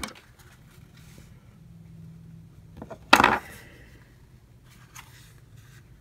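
Plastic case of a bloated Pocket Juice power bank being handled and pried at its seam: faint scratching, then one loud, short clack about three seconds in and a faint tick near the end.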